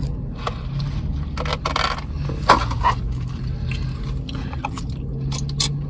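Scraping and handling sounds from food and its packaging at a meal, with a few short sharp clicks, the loudest about two and a half seconds in, over a steady low hum.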